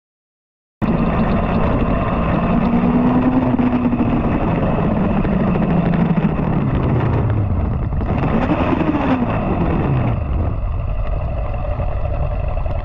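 Motor vehicle engine running loudly, cutting in suddenly from silence about a second in; its pitch sinks slowly over several seconds, then rises and falls again around eight to nine seconds.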